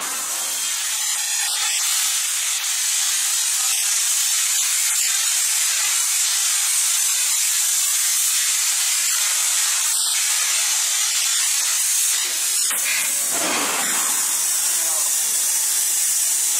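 CNC plasma cutting torch cutting through metal plate: a steady hiss of the plasma arc and its air jet, with a brief deeper rush of noise about thirteen seconds in.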